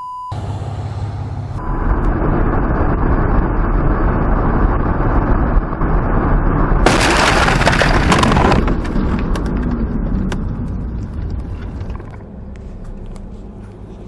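Steady car-cabin road noise, then about seven seconds in a sudden loud crash lasting under two seconds as the windshield is struck and cracks into a web of fractures. After the crash the noise dies down.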